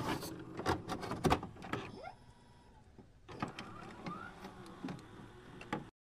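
Glitch-style sound effects: scattered sharp clicks and a few short rising tones, with a brief lull partway through, cutting off abruptly near the end.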